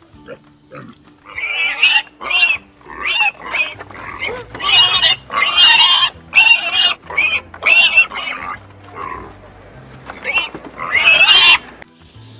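Pig squealing in a string of about a dozen short, high-pitched calls, with quiet background music underneath.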